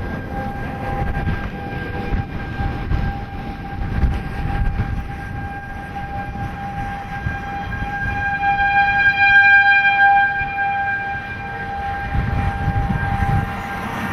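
Outdoor tornado warning siren holding one steady tone, swelling louder about eight to ten seconds in and fading again as it sweeps round, over a low rumble of wind noise. It sounds the tornado warning for the town.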